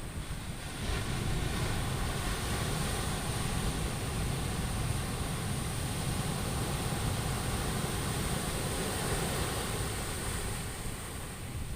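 Sea surf washing on the shore, a steady rush that swells about a second in and then holds.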